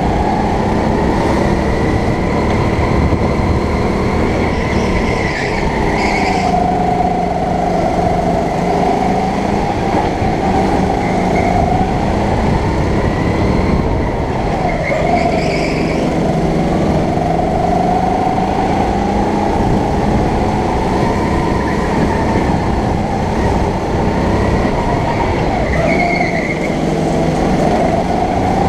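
Go-kart engine heard on board at full throttle, its pitch sagging and then climbing again several times as the kart slows for corners and accelerates out.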